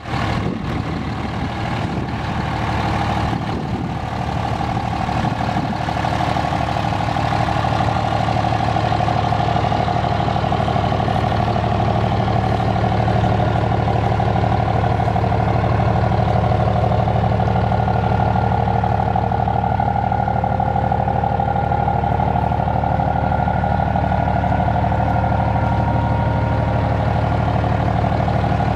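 Dodge Ram Mega Cab pickup's Cummins turbodiesel idling steadily.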